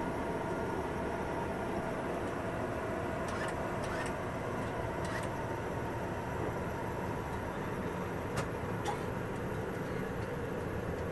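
Steady cockpit noise of a jet aircraft on final approach: an even rush of airflow and engine hum heard inside the flight deck, with a few faint clicks, two of them close together late on.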